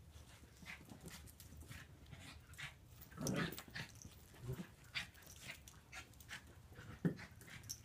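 Two puppies play-fighting on carpet: scattered scuffles and mouthing sounds, with a brief louder puppy vocalization about three seconds in and a sharp knock near the end.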